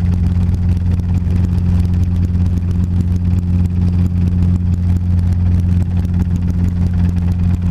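Robinson R22 helicopter's piston engine and two-bladed main rotor running steadily at hover power, heard from inside the small cabin as a loud, even low drone.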